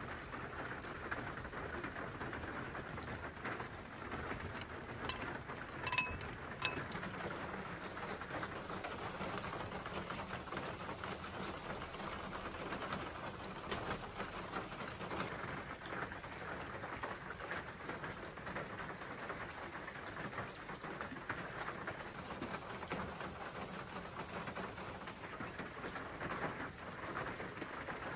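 Steady rain falling on hard paved ground, with a short clink about six seconds in.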